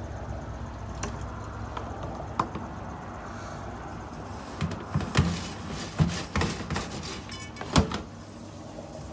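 Several clunks and knocks as a metal rice cooker inner pot is handled and moved, the loudest near the end, over a low steady hum that stops about then.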